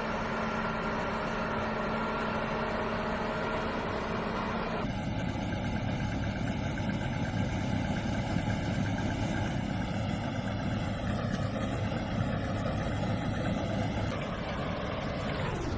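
Diesel engines of heavy harvest machinery running steadily. The sound changes abruptly about five seconds in, as another machine takes over.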